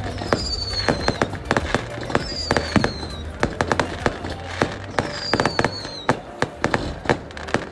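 Aerial fireworks going off overhead: a dense run of bangs and crackling, with three high whistles that fall in pitch, spaced a couple of seconds apart.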